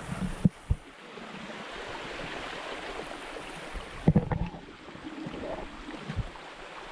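Steady rushing of flowing stream water, swelling a little through the middle, with a few short low thumps: two near the start, a cluster about four seconds in and one more near the end.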